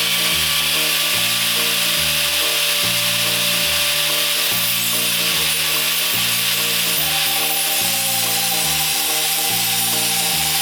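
A power tool cutting through 10 mm steel rebar with a steady whine and hiss, a second, higher whine joining about two-thirds of the way in, over background music with a regular bassline.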